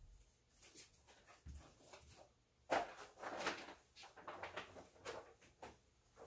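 Faint, irregular rustling of a Teflon sheet being handled at a heat press.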